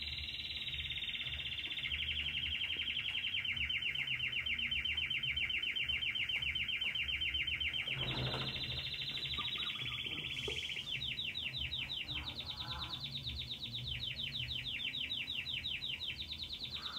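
Young domestic canary (canário belga) singing a long unbroken song of rapid, high trills. It switches to a new trill every few seconds, and from about eleven seconds in the notes are slower and more clearly separated.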